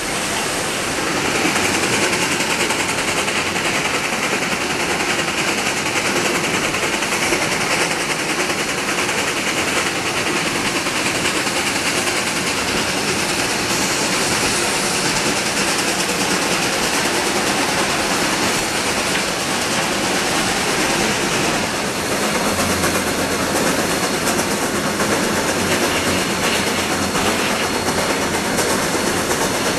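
Two geared Shay steam locomotives double-heading a long, heavy train up a mountain grade: rapid, steady exhaust beats mixed with the clatter of the cars' wheels.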